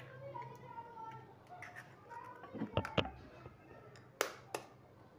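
Eggs being cracked into a glass bowl: a few sharp clicks and taps of eggshell against the glass, a cluster about two and a half seconds in and two louder taps about a second later.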